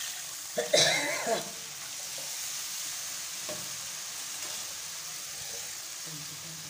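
Whisked curd poured into hot oil in a frying pan for kadhi, with a loud burst of sound about a second in, then a steady sizzle as a spatula stirs it through the pan.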